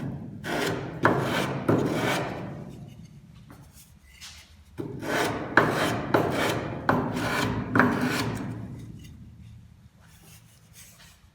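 Sandpaper rubbing on a wooden spatula by hand: quick back-and-forth rasping strokes, three in the first two seconds, then a second run of about six strokes from about five to eight seconds in, trailing off near the end.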